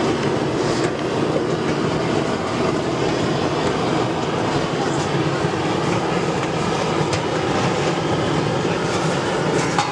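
Handheld gas blowtorch running steadily, its flame singeing the hair off animal trotters.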